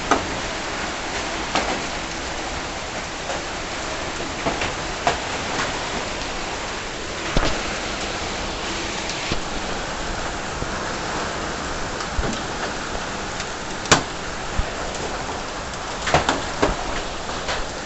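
Hailstorm with heavy rain: a steady downpour hiss with hailstones striking hard surfaces in irregular sharp knocks, one loud strike about two thirds of the way through and a quick cluster near the end.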